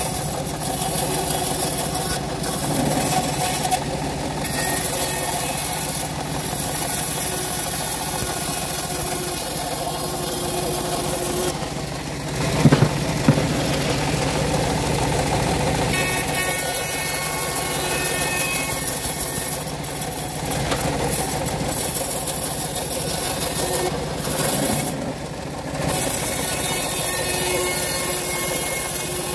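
Homemade bandsaw sawmill running steadily as its blade rips teak and acacia boards lengthwise, with the hiss of the cut rising and falling. Two sharp knocks stand out around the middle.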